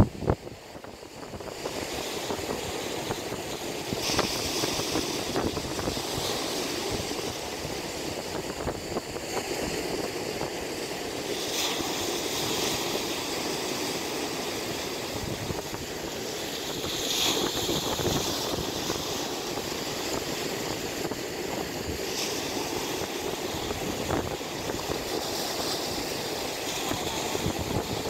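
Steady outdoor background noise of wind and distant sea surf, with soft hissy swells now and then.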